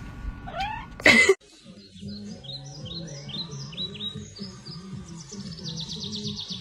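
A cat gives a short meow, then a brief loud noise cuts off abruptly. After that comes background music with a low repeating bass line and chirpy high notes that turn into a fast trill near the end.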